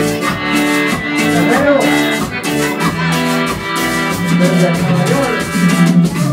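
Cumbia played by a band, with a steady beat and held chords.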